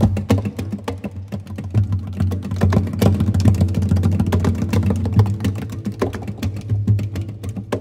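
Two classical guitars in a percussive passage: quick taps and slaps of the hands on the guitar bodies, in a steady rhythm over low sustained string notes.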